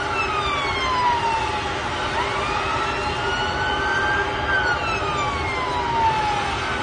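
Emergency vehicle siren on a slow wail: its pitch sweeps down, back up, and down again, each sweep taking about two seconds, over a steady rush of city noise.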